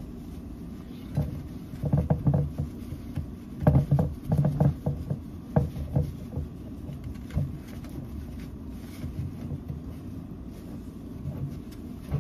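Wad of paper towel rubbing grease around the inside of a ceramic baking dish: brisk, irregular swishing strokes with small knocks, busiest in the first half and thinning out after.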